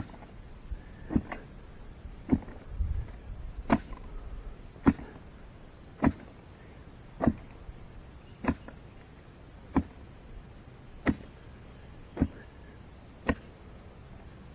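A digging tool is repeatedly driven into the ground while a post hole is dug: about a dozen sharp chopping strikes, evenly paced at roughly one every second and a bit.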